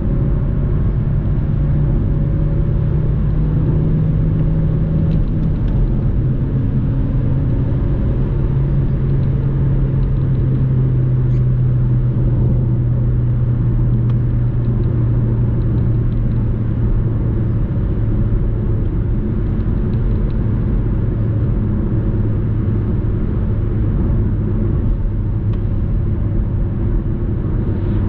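A 2007 Audi A3 Sportback's 1.6 FSI four-cylinder petrol engine running at a steady cruise, heard inside the cabin over a constant drone of tyre and road noise. Its pitch drops a step about five seconds in and then eases slowly lower.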